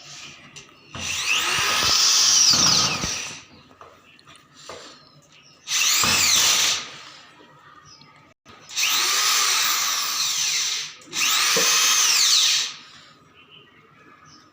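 Electric hand drill boring screw holes for mounting a door closer, in four runs of one to two seconds each, its pitch rising and falling within each run.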